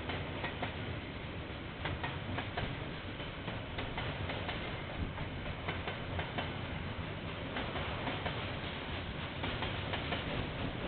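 KiwiRail freight train's container wagons rolling past, a steady rumble of wheels on rail with many sharp, irregular clicks from the wheels on the track. Heard through a security camera's microphone, so the sound is dull and lacks treble.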